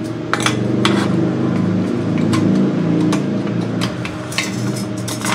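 Sharp metallic clinks and taps from stainless-steel motorcycle silencer parts as a perforated core packed with glass wool is handled and fitted into its canister, over a steady low mechanical drone that swells for the first few seconds.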